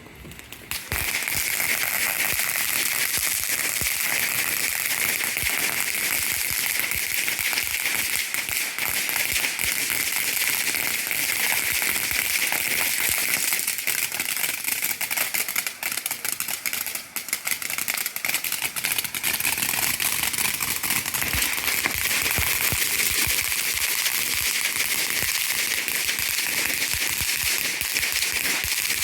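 Ground fountain firework spraying sparks: a steady loud hiss thick with rapid crackling, starting suddenly about a second in and running on with a brief dip partway through.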